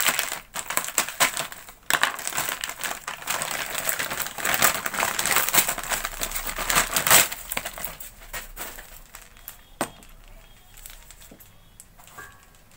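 Plastic packaging bag crinkling and rustling as it is opened and handled. The noise is dense for the first seven seconds or so, then gives way to a few light clicks and knocks as the rubber LPG hose is pulled out.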